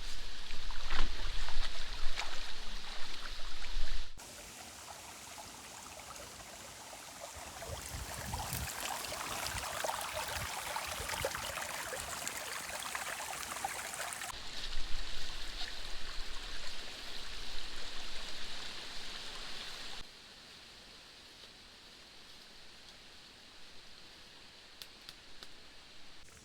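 Water streaming and splashing in a drainage canal, heard across several cut-together shots, loudest in the first four seconds and faint near the end.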